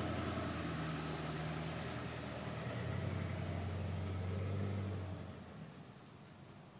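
A motor vehicle engine running steadily with a low hum under a hiss, fading away about five seconds in.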